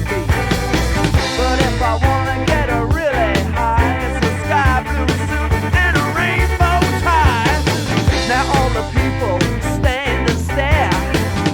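Upbeat rock song with a steady, driving beat and a lead line whose notes slide up and down in pitch, during an instrumental stretch of the song.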